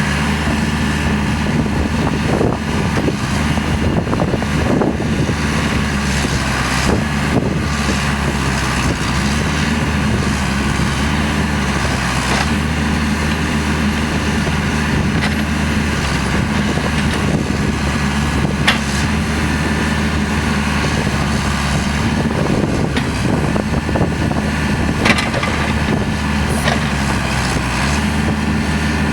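Backhoe's diesel engine running steadily, its pitch shifting a little midway, with a few sharp knocks.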